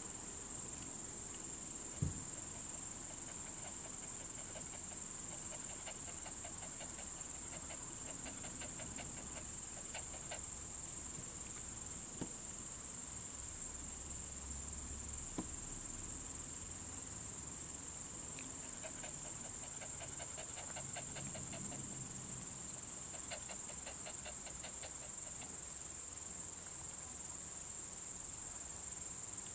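Crickets chirring in a steady, high-pitched drone, with a fainter rapid trill from other insects coming and going. A single soft knock sounds about two seconds in.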